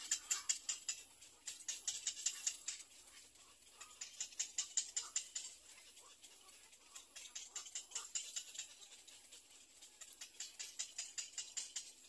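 Rapid high-pitched ticking calls in bouts of about a second, each a quick run of ticks, coming back every few seconds.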